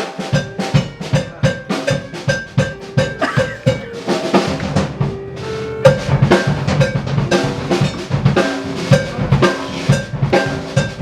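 Rock music led by a drum kit: rapid snare and bass drum hits, several a second, with held instrument notes over them.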